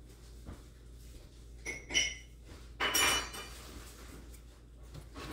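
Painting supplies being handled at the work surface, hard items clinking: two light clinks about two seconds in, then a louder clatter about a second later.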